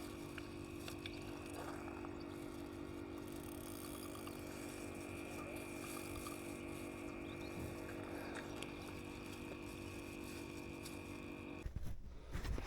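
Faint, steady hum with a constant higher tone above it, unchanging until it cuts off abruptly near the end.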